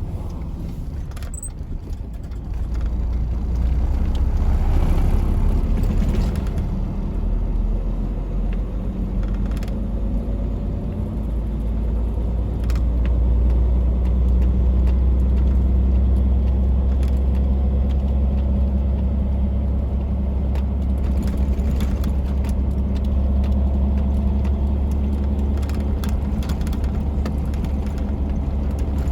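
A tractor-trailer truck's diesel engine running steadily, picking up in level a few seconds in. A few light clicks sound over it.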